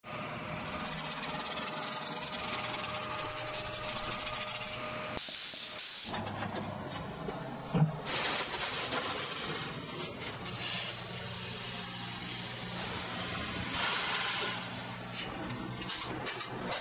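Dry sand being scooped and poured into a plastic bag lining a wooden box: a rustling hiss that swells near the end, with one sharp knock about halfway through over a steady low hum.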